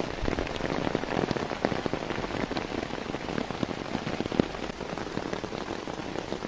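Steady rain, with many separate drops heard striking.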